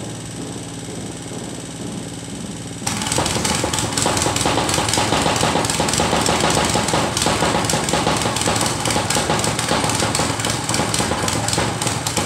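Mikasa tamping rammer's small engine idling, then about three seconds in throttled up so that the rammer pounds rapidly and steadily, driving a vertical steel pipe down as a makeshift pile driver.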